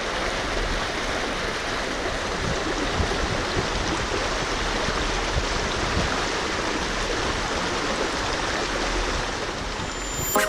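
Cascading creek water rushing steadily, an even, unbroken roar of falling water.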